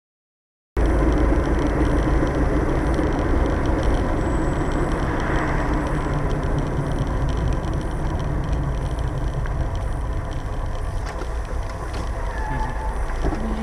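Steady engine and road noise of a moving car, heard from inside the cabin through the dashcam's microphone; it starts abruptly about a second in after dead silence.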